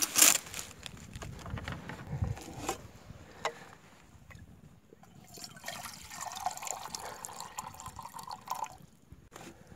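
Water poured from a plastic canteen into a steel canteen cup, a trickling, gurgling fill that runs for about three seconds and stops near the end. It is preceded by a loud clatter at the very start as the canteen is handled in the metal cup.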